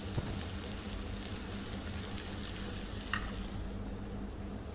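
Chopped tomatoes frying in hot oil in a karahi: a steady sizzle with scattered small crackles.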